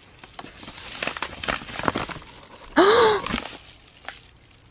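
Cardboard and plastic packaging rustling and clicking as a parcel is opened by hand, then about three seconds in a short, loud wordless exclamation from a woman, a gasp-like 'ooh' that rises and falls in pitch.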